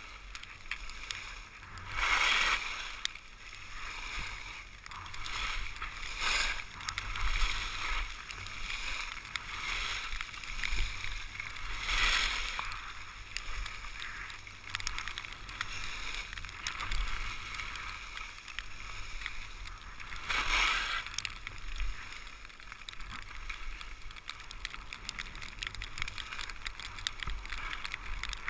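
Skis hissing and scraping over packed snow during a downhill run, swelling louder several times.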